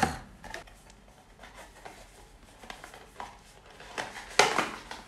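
A small cardboard box being handled and opened, with light rustles and scrapes of the card, and a louder scrape about four and a half seconds in.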